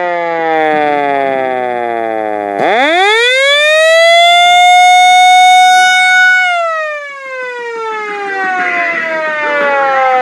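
A siren wailing: its tone falls, then about two and a half seconds in jumps sharply up to a steady high pitch, holds there for a few seconds, and then falls steadily away.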